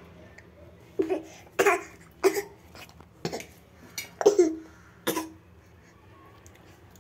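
A young child giving a run of short, sharp coughs, about seven over some four seconds, starting about a second in, the kind of playful imitation coughing he was just asked to repeat.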